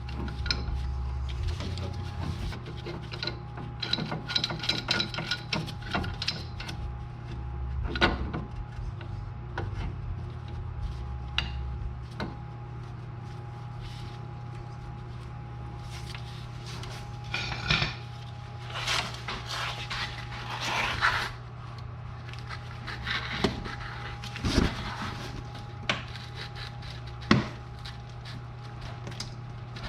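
Hand tools working on a car's rusty steering and suspension parts: scattered metal clinks, knocks and scrapes at irregular intervals over a steady low hum.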